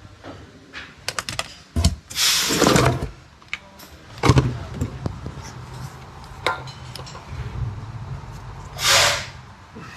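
Hands working on car trim and parts: scattered clicks and knocks with rubbing, and two longer scraping rustles, one about two seconds in and one near the end. A low steady hum starts about four seconds in.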